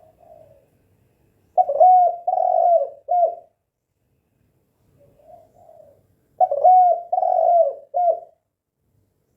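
Spotted dove (tekukur) cooing: two call phrases about five seconds apart. Each is a soft, faint lead-in followed by three loud, hooting coos.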